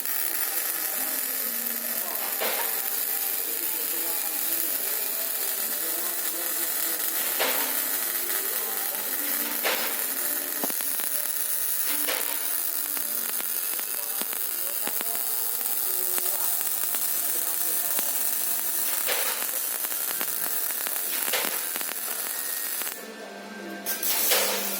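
MIG welding arc crackling and sizzling steadily as the CNC torch lays a bead, with a few sharper pops; it starts abruptly and cuts off abruptly about two seconds before the end. Background music plays underneath.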